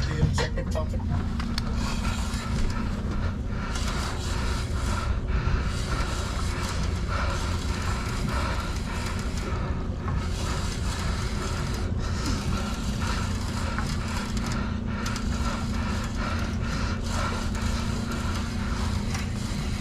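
Steady low rumble of wind buffeting the microphone on an open boat, with a faint steady hum underneath and scattered light clicks and scrapes of handling gear.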